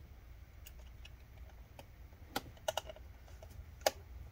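Scattered light clicks of a small screwdriver working the screws of a laptop's display hinge, about seven in all, with the sharpest click near the end.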